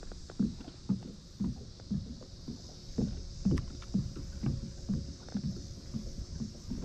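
Water slapping against the hull of a plastic sit-on-top pedal kayak as it moves across light chop, with low slaps about twice a second.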